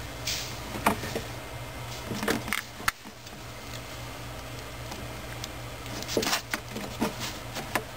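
Handling noises as a spark plug boot on its ignition wire is worked onto the spark plug in an engine bay: scattered small clicks and knocks of rubber, wire and plastic parts, over a steady low hum.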